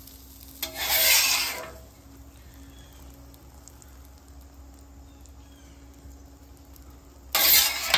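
Metal spatula scraping across the steel top of a Blackstone griddle, scooping up diced vegetables: one scrape about a second in and another near the end, each about a second long, with a low steady background between.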